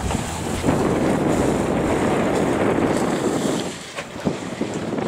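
Wind buffeting the microphone over the rush of water along a sailboat's hull while under way. It eases off about four seconds in, with a few light knocks.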